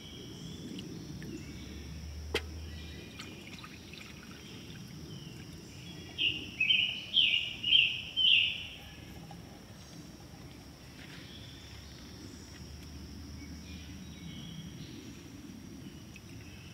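Rainwater poured from a cup through a soaked cotton bandana into a pot, trickling steadily. About six seconds in, a bird calls a quick run of five loud chirping notes.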